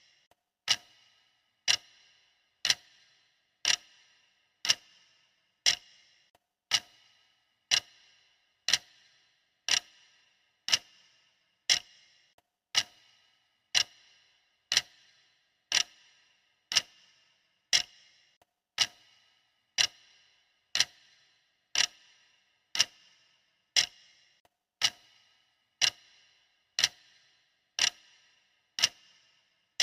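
Clock ticking, one sharp tick each second, each with a brief metallic ring.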